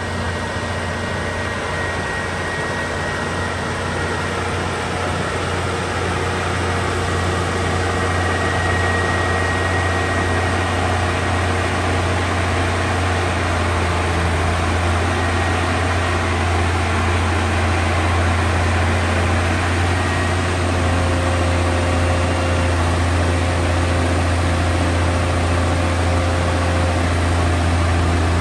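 Liebherr 974 Litronic crawler excavator's diesel engine running steadily while the machine moves onto the trailer: a deep, even hum that grows slightly louder through the stretch, with a faint high whine over it.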